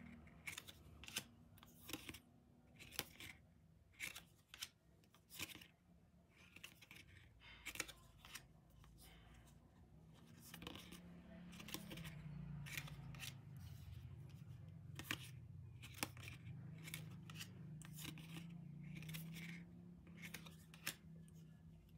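Faint, irregular clicks and slides of glossy photocards being handled, flipped and moved one by one in the hands. A low hum comes in about halfway through.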